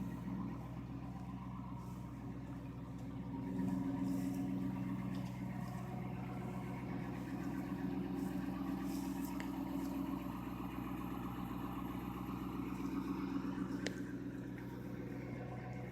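A car engine idling steadily, a low even hum that gets a little louder about three and a half seconds in.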